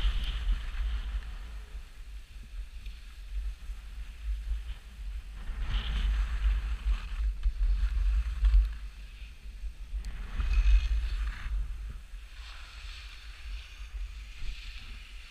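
Skis hissing and scraping over packed snow, swelling into a louder swish with each turn about three times, over steady low wind buffeting on the helmet camera's microphone.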